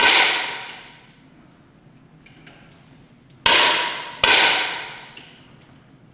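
Match air rifles firing on a 10-metre range: three sharp reports, each ringing out in the hall for about a second, the last two less than a second apart.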